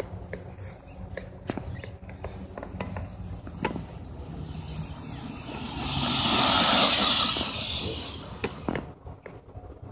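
Hobby King Rattler RC truck running on a 2S LiPo across grass: a mechanical whir and scattered clicks from its drivetrain and tyres. The sound swells to its loudest for about two seconds past the middle, then drops away near the end.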